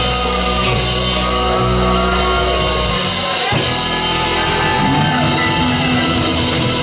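Live rock band playing loud: electric guitar, bass guitar and drum kit. A held low bass note gives way about three seconds in, with guitar lines gliding in pitch above it.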